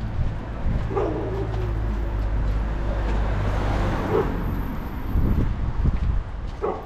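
A motor vehicle's engine running with a steady low hum, and a swell of noise around the middle that fades again as the hum dies away.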